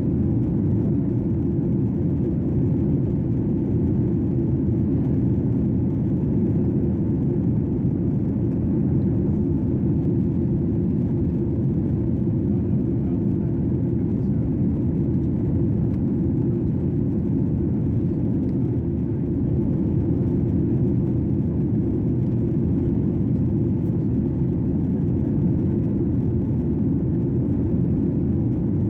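Airliner cabin noise in flight: a steady low rumble of engine and airflow with no change.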